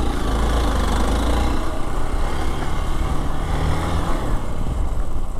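Single-cylinder engine of a Hero Xpulse 200 motorcycle running under way at low speed over loose sandy dirt, with heavy wind rumble on the helmet microphone. The engine pitch rises a little near the middle and eases back.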